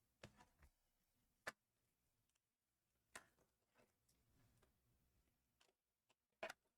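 Near silence broken by a few faint, sharp clicks and taps, the clearest about a second and a half in: trading cards being handled and flipped through.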